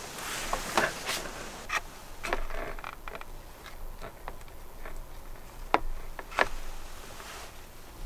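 Light clicks and taps of metal chopsticks against a plastic sashimi tray while eating, with soft rustling; two sharper clicks come past the middle.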